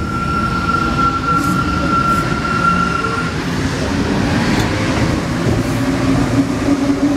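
Alstom NS-16 metro train running on rails and slowing into a station, heard from inside the driver's cab. There is a steady rumble, with a high steady squeal for the first three seconds or so and a lower steady hum from about five seconds in.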